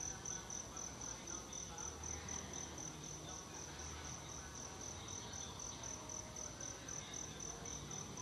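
An insect, cricket-like, chirping in a high, even pulsing trill at about four pulses a second, over faint background noise.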